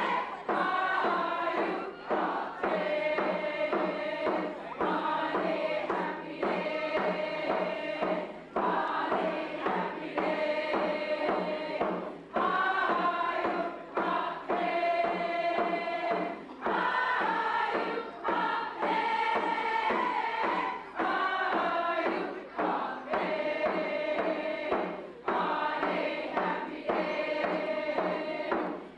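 Closing music with choir singing, in phrases of about two seconds each.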